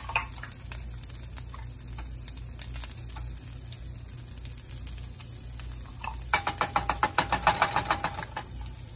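Ground beef sizzling faintly in a frying pan over a steady low hum, as salsa is spooned in from a plastic measuring cup. About six seconds in comes a fast, even rattle of ticks, roughly nine a second, lasting about two seconds.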